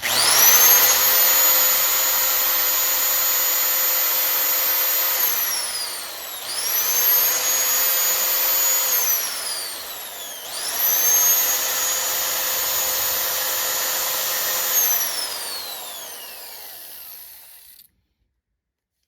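Electric drill running a 1/8-inch bit against a broken bolt, in three trigger pulls: about five seconds, then two shorter runs. Each starts with the motor whine rising as it spins up and ends with it falling off as it is released, the last one winding down slowly. The bit is not biting into the hardened bolt.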